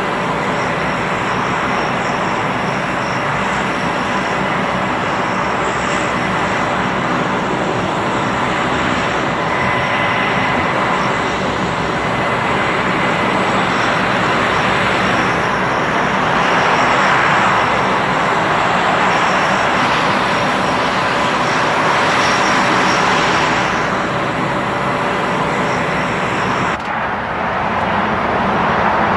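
Fairchild Republic A-10 Thunderbolt II's twin General Electric TF34 turbofan engines running on the ground: a steady jet roar with a high, even whine. The sound changes abruptly near the end, losing its highest whine.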